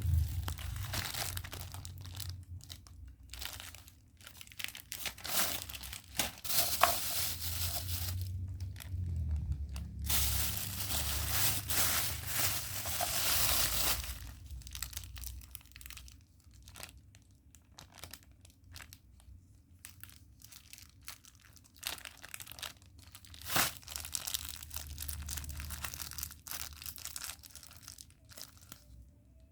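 Plastic packaging crinkling and tearing in irregular bursts as it is handled and opened, with quieter pauses between handlings.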